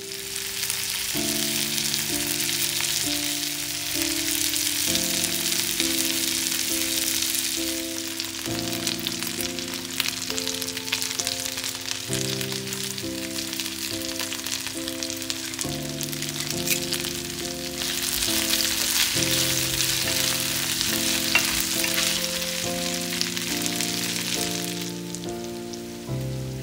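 Chicken breast pieces sizzling as they fry in oil in a nonstick frying pan. The sizzle eases about a third of the way in, swells again later and dies down near the end, over background music of held notes.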